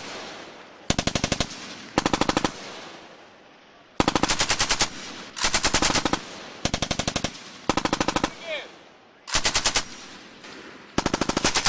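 Belt-fed machine gun firing short bursts, about eight in all, each lasting under a second with pauses between them.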